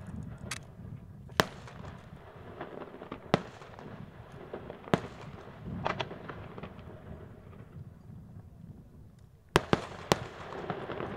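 Aerial firework shells bursting: several sharp bangs spaced a second or two apart, two of them close together near the end, with crackling between them.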